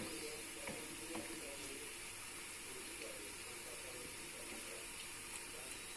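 Thin matchstick-cut quince cooking in butter in a pot, a faint steady sizzle with a few soft clicks as the quince softens.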